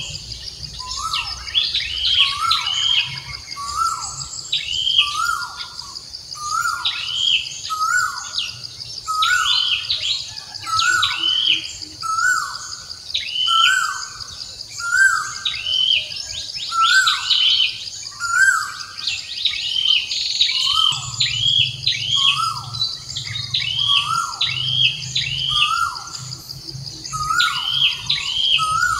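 Birds calling over and over, a short falling call about once a second mixed with higher chirps, over a steady high insect drone.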